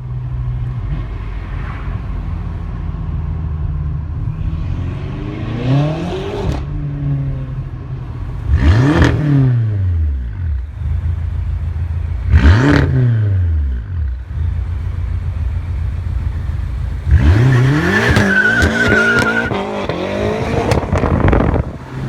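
Manhart-tuned BMW M6's twin-turbo V8 idling, then revved four times, each rev rising and falling back to idle; the last rev is the longest, with a high wavering tone during it.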